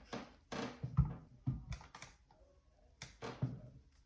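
Irregular clicks and knocks from a smoke alarm being handled and its test button pressed, about seven in all; the alarm gives no beep.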